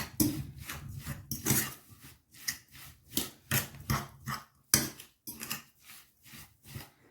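A utensil stirring and scraping through a thick, lumpy mixture of cottage cheese, egg and sugar in a bowl. It makes short, irregular scraping strokes at about two a second.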